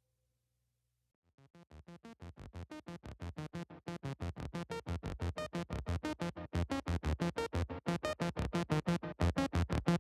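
Background electronic music with a fast, steady beat, fading in after about a second of silence and growing louder.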